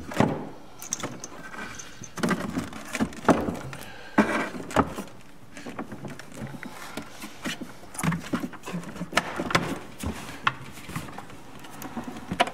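Irregular knocks, clunks and scrapes as a disconnected vacuum motor is handled and worked out of a cleaning machine's plastic housing by hand.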